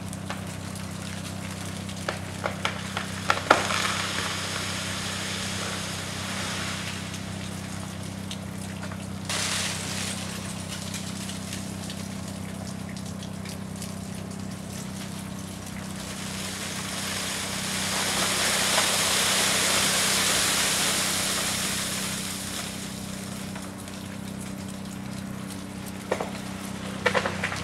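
Ice-laden tree branches cracking and snapping: a few sharp cracks a couple of seconds in and a cluster near the end. Between them a hissing rush in the iced branches swells and fades, loudest about two-thirds of the way through, over a steady low hum.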